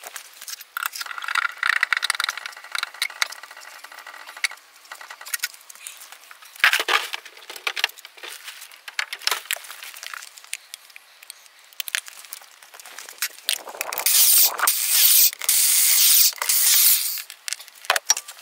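Hand work on a car's front wheel: metallic clicks, clanks and scrapes as the wheel bolts are undone with a wheel wrench and the scissor jack is cranked, with a louder stretch of scraping and rustling near the end as the wheel comes off.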